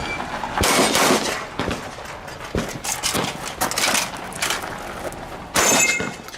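A few shotgun shots with sharp reports, the loudest about a second in and again near the end.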